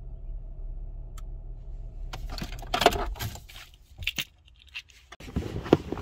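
A steady low hum, then from about two seconds in a string of sharp clicks and jangling rattles of small handled objects, a short lull, and more rattling near the end.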